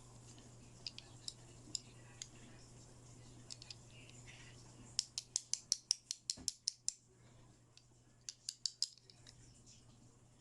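Scissors snipping during an unboxing: a fast run of about a dozen sharp snips midway, then four more shortly after, with a few lighter clicks before them.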